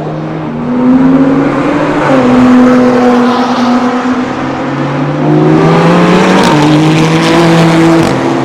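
Race car engine at full throttle on a circuit, its pitch climbing as it accelerates and dropping sharply at each gear change, with sharp crackles in the last couple of seconds.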